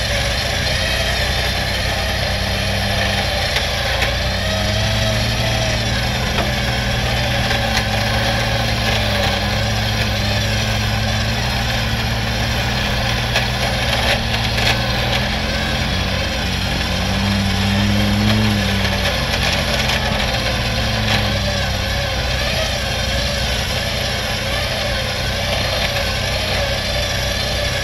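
Vehicle engines running steadily under light throttle while a pickup stuck in deep snow is pulled out by a tow rope, the revs rising and falling twice.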